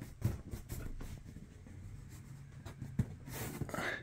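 Faint rubbing with a few light knocks and clicks: a hand pressing and pushing on a soft, sagging camper ceiling panel that has been soaked by a roof leak.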